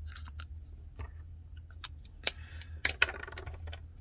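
Small metal hand tools and parts clicking and tapping against a glass tabletop. Two sharp clacks come a little past the middle, about half a second apart, followed by a brief rattle. A steady low hum runs underneath.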